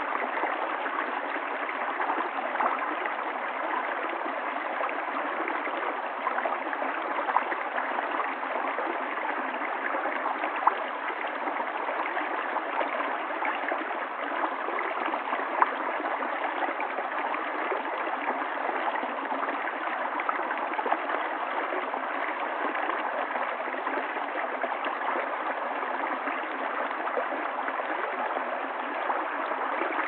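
Small stream running over rocks in a shallow cascade: a steady rush of water, with a few brief louder splashes.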